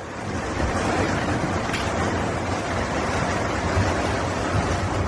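Steady rush of storm wind and rain, with a fluctuating low rumble from wind buffeting the microphone.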